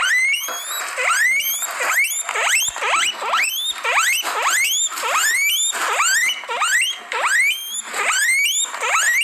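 Guinea pig wheeking: a continuous run of loud squeals, each sweeping sharply up in pitch, about two a second.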